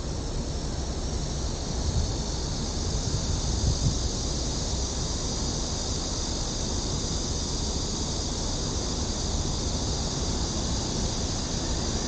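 Steady outdoor ambience: a continuous high buzzing drone of cicadas in the trees over a low rumble of wind on the microphone and distant traffic.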